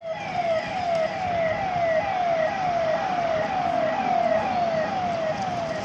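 Vehicle siren sounding in quick repeated downward sweeps, a little over two a second, over a steady background rumble.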